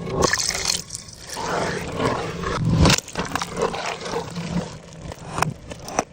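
Close-miked eating sounds of chicken biryani being chewed: irregular wet crackling and scraping mouth noises, with louder surges that swell and then cut off sharply, one about 3 seconds in.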